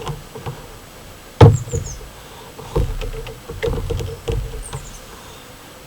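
Knocks and clicks from handling an air rifle between strings of shots, with one sharp, loud knock about a second and a half in and three softer knocks after it. Small birds chirp briefly.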